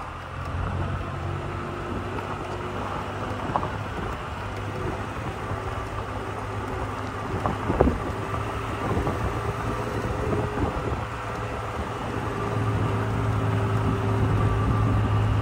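Toyota Tacoma pickup rolling slowly down a dirt road, its engine running with a steady low hum over the crunch of tyres on gravel, and a few sharp knocks from stones. The engine hum grows louder near the end.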